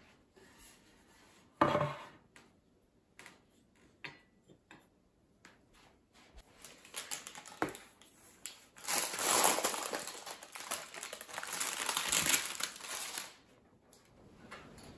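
Baking parchment crinkling and rustling as a baked rhubarb cake is lifted out of its tin by the paper, loudest in the second half. A single knock comes about two seconds in, with scattered small clicks after it.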